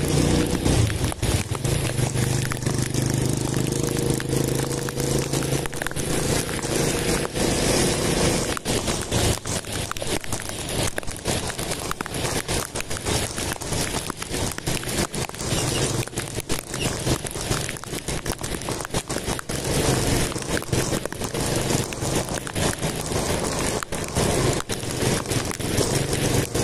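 Riding a motorcycle on wet roads in light rain: wind rushing and crackling over the handlebar camera's microphone, with the engine's hum heard in the first few seconds and again near the end.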